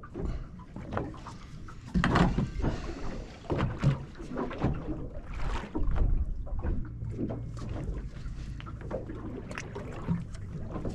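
Small boat rocking at sea, water slapping against the hull in irregular knocks and splashes over a low rumble.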